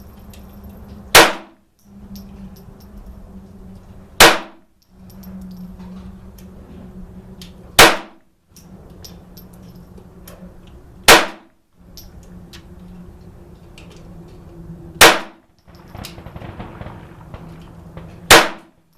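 Kel-Tec P17 semi-automatic .22 LR pistol fired six times in slow single shots, about three to four seconds apart. Each shot is sharp and brief, with a steady low hum between shots.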